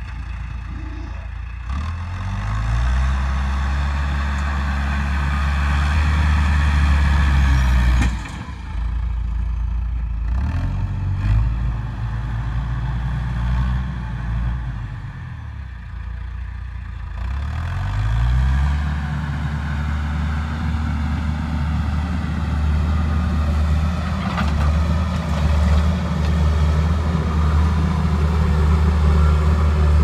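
A John Deere 310E backhoe's four-cylinder diesel engine throttling up and down as it works. It revs up and holds high, drops back sharply about eight seconds in, revs up briefly again, then comes back up and holds high through the second half.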